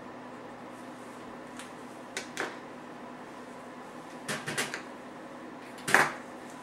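A few small plastic clicks and knocks as a marker pen is handled, capped and put into a pen cup, with a cluster of clicks about four seconds in and the loudest knock near the end. A steady low hum runs underneath.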